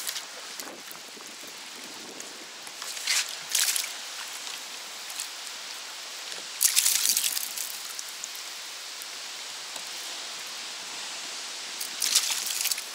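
A hooked fish thrashing and splashing at the surface beside a kayak, in three short bursts, over a steady wash of sea water.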